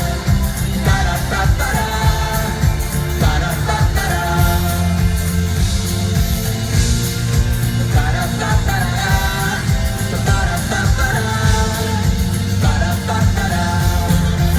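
Live band playing an upbeat pop song, with singing over a heavy bass line.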